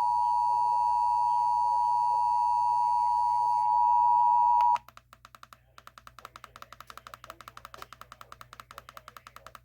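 Weather radio emergency alert tone: a loud, steady electronic tone that cuts off sharply about five seconds in, signalling that a warning message follows. After it comes faint, rapid clicking.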